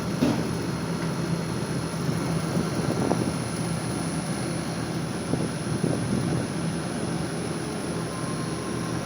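Gree GMV5 VRF outdoor unit running steadily, its compressor and fans giving a constant hum under refrigerant charging, with a few faint knocks.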